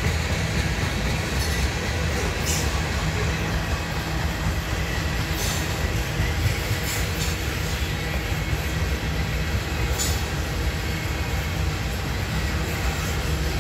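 Loaded coal hopper cars of a freight train rolling past: a steady rumble of steel wheels on rail. Brief high-pitched wheel squeals cut in a few times.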